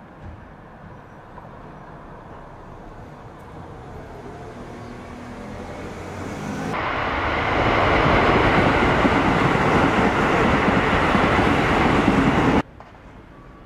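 A passing vehicle, growing steadily louder over several seconds with a faint rising engine hum, then a loud steady rush of noise that cuts off suddenly near the end.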